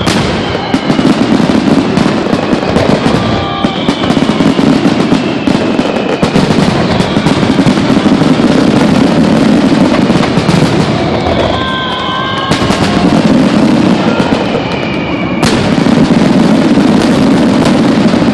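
Fireworks finale barrage: aerial shells launched and bursting in rapid succession, a continuous loud rumble of bangs and crackle. High whistling tones glide down in pitch over it, and sharp cracks stand out near the start and again about two-thirds of the way through.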